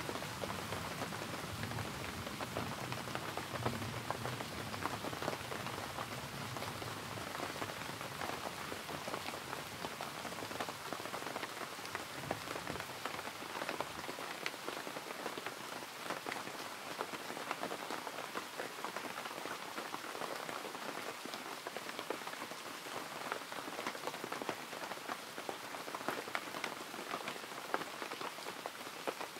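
Steady rain falling, with many small drop ticks throughout and a soft low rumble under it in the first half that fades away.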